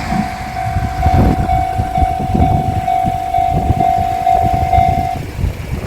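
Railway level-crossing alarm ringing, a single steady electronic tone beating about twice a second, which stops about five seconds in as the crossing clears after the train has passed. A low train rumble runs underneath.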